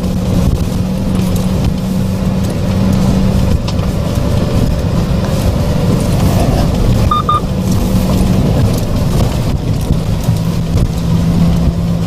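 Hyundai Porter II 4WD pickup's diesel engine running steadily while driving on a gravel road, with tyre noise and small rattles, heard from inside the cab. A short double beep about seven seconds in.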